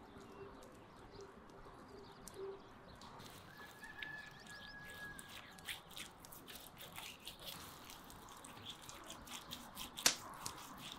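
Faint outdoor birdsong over soft wet dabbing and clicking of a silicone basting brush spreading marinade on raw steak, with one sharper click near the end.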